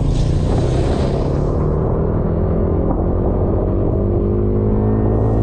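Suzuki GSX-S150 150cc single-cylinder motorcycle engine running steadily as the bike picks up speed. A rushing hiss sits over it for the first couple of seconds.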